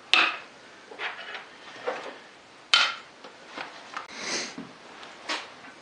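Small metal nuts and bolts clinking as they are dropped by hand, a few at a time, into the bowl of a small vibratory jewelry cleaner: a handful of separate sharp clinks, with a brief rustle about four seconds in.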